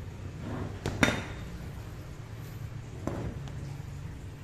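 Sharp metal knocks and clinks from a motorcycle's steel steering stem and lower triple clamp being handled and shifted: two close together about a second in and a fainter one around three seconds in, over a low steady hum.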